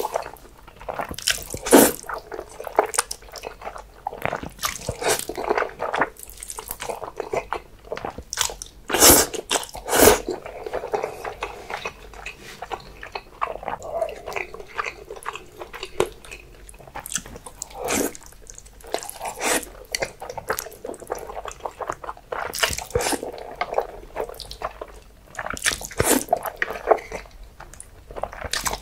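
Close-miked eating of black bean noodles (jjajangmyeon): mouthfuls of noodles slurped in and chewed, with irregular wet mouth sounds. A few sounds stand out louder and sudden, about two seconds in and twice around nine and ten seconds.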